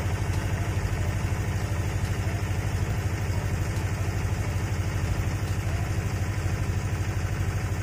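Engine of a generator running steadily at a constant speed, an even low throb, powering phone chargers during a power cut.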